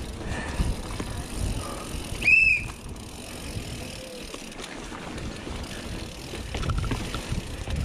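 Mountain bike descending fast over concrete and rock: tyre rumble, chain and frame rattle, and wind on the helmet-mounted microphone. A brief high squeal sounds about two seconds in, and sharper clatter follows near the end.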